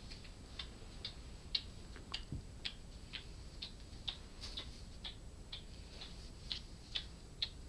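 A clock ticking steadily, about two light ticks a second.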